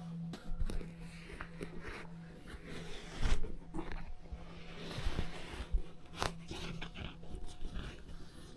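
Irregular crunching and snapping in dry leaves and brush, with a sharper knock about three seconds in and another near six seconds, over a steady low hum.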